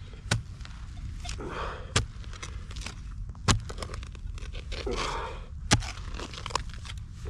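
Digging in soil: four sharp thunks of a spade or digging tool going into the ground, roughly every one and a half to two seconds, with scraping of earth between them.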